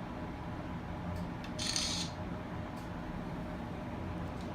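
Steady low hum of a car interior, with a short burst of hiss about a second and a half in.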